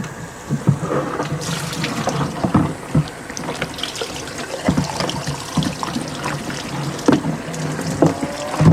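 Water from an outdoor sink tap running over an oily tool, rinsing off degreaser, with occasional knocks as the tool is handled in the sink.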